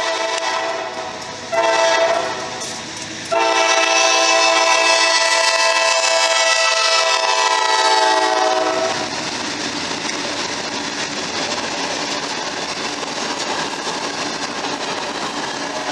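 CSX freight locomotive's multi-note air horn sounding for a grade crossing: the end of one blast, a short blast, then a long blast lasting about five seconds. The horn then stops, and the locomotives and covered hopper cars roll past with a steady noise of wheels on rail.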